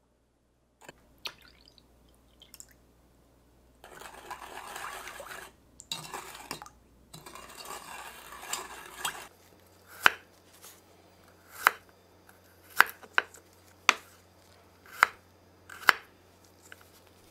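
A spoon stirring soy-sauce marinade in an enamel bowl, a swishing scrape with small clinks. From about ten seconds in, a kitchen knife slices garlic cloves on a wooden cutting board: sharp knocks about a second apart, the loudest sounds here.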